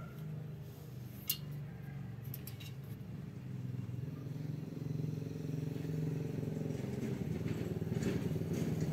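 A vehicle engine running with a steady low hum that grows gradually louder, with a sharp click about a second in.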